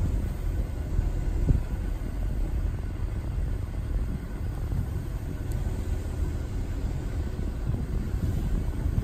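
Steady low outdoor rumble that wavers constantly, with one brief thump about one and a half seconds in.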